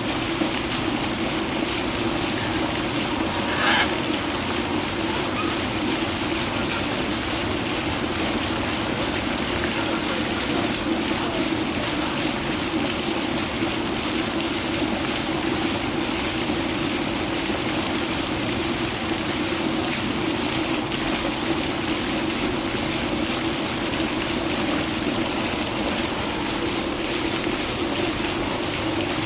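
Steady rushing of running water, with one short parrot call about three and a half seconds in.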